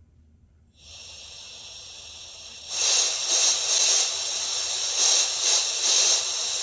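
Compressed air hissing out of a scuba regulator. It starts softly, then turns much louder with uneven surges, and cuts off suddenly.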